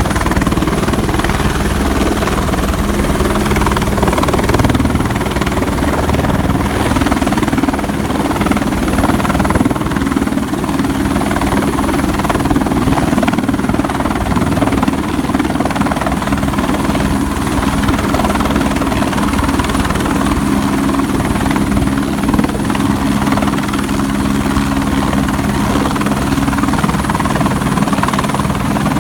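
Helicopter working hard to land in strong, gusty wind: a steady loud rotor beat with a thin high whine above it, and wind noise rumbling on the microphone.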